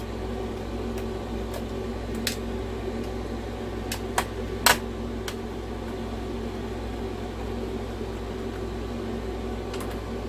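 A steady machine hum with a few sharp clicks of small hard parts and tools being handled on a workbench, the loudest three coming between about two and five seconds in.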